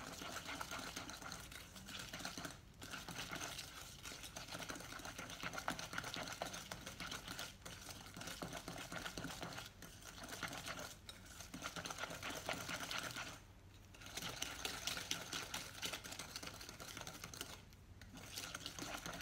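Wire balloon whisk beating butter and icing sugar by hand in a glass bowl: rapid, even strokes with the wires ticking and scraping against the glass, broken by a few brief pauses. The butter is being creamed with the sugar until pale.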